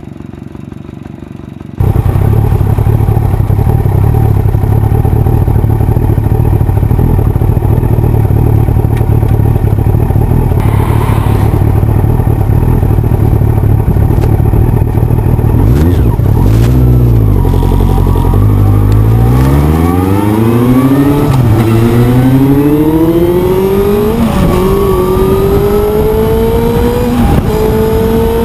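Yamaha FZS1000 Fazer's inline-four engine running steadily, then pulling away and accelerating hard through the gears: the pitch climbs and drops back at each upshift, three or four times.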